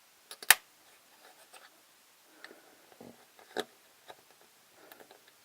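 Small hard plastic toy pieces clicking and tapping as they are handled. There is a sharp click about half a second in, another clear tap a little past the middle, and faint small taps in between.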